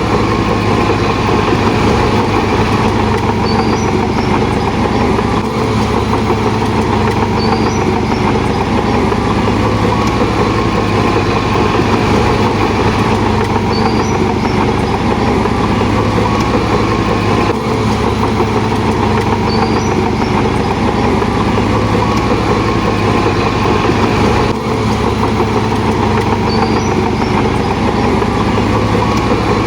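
Shantui DH17 C2 bulldozer's diesel engine running steadily, with a faint short high squeak every few seconds.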